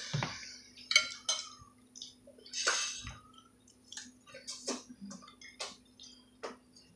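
Spoons clinking and scraping on plates as food is scooped and eaten, a scatter of short, irregular clicks and knocks.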